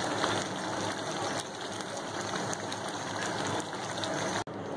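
Spinach and chicken curry sizzling in a pan as it is stirred with a wooden spatula: a steady hiss with a few faint scrapes, which breaks off for an instant near the end.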